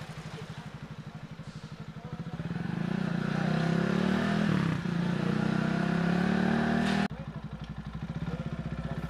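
Motorcycle engine running while riding, getting louder about two seconds in as it speeds up, with a short dip near the middle; about seven seconds in the sound drops abruptly back to a quieter steady engine.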